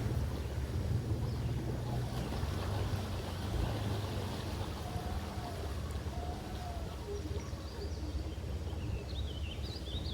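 Can-Am 700 XMR ATV engine running at low revs, a steady low rumble, with a few faint high chirps near the end.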